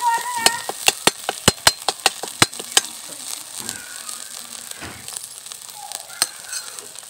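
A spice paste of ginger, garlic, green chilli and coriander frying in mustard oil in a metal kadhai, sizzling steadily while a ladle stirs it. A quick run of sharp clicks and pops comes in the first three seconds, then only a few more.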